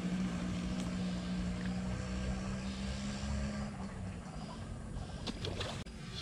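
A motor engine drones steadily at a fixed pitch over an outdoor hiss, fading away about four seconds in; a few faint knocks follow near the end.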